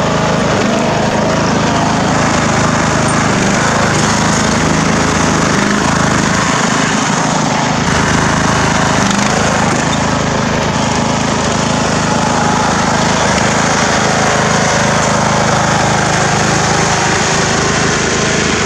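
Craftsman riding mower's engine running steadily under way, at an even speed and load. The engine runs with a cleaned carburetor and its fuel pump bypassed.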